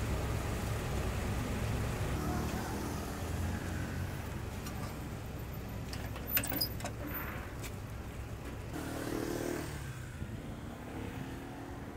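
Steady low background rumble of a street-food stall, with a few sharp clicks about six seconds in.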